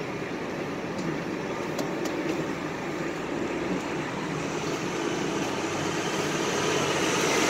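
City street traffic noise: a steady hiss and rumble of cars, growing louder toward the end as a heavy vehicle draws near.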